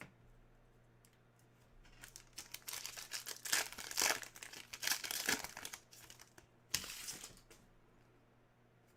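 Plastic trading-card pack wrapper crinkling and tearing as a pack is opened by hand, in rustling spells from about two seconds in to about six seconds in, with one more short crinkle near the end.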